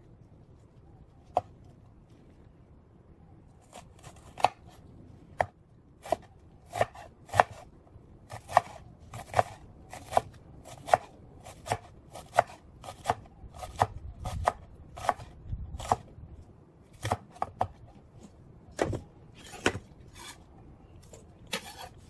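Chef's knife dicing a red onion on a wooden cutting board: a long, uneven series of sharp knocks of the blade on the board, about one to two a second.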